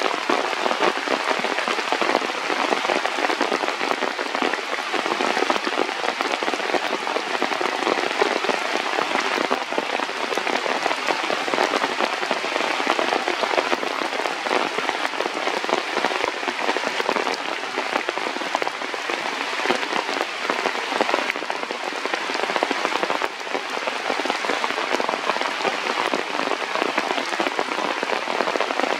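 Steady rain falling, a dense, unbroken patter of drops.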